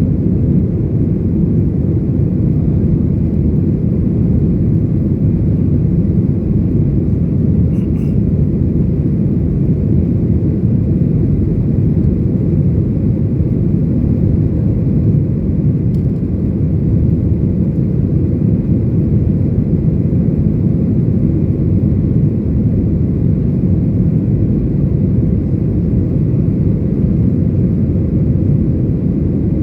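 Boeing 737 airliner cabin noise: the engines and airflow make a steady low rumble, with two faint clicks about eight seconds apart.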